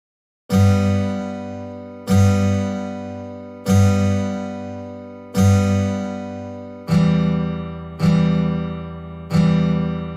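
Music: an acoustic guitar strumming single chords, seven strikes each left to ring and fade, starting about half a second in; the last three come a little closer together.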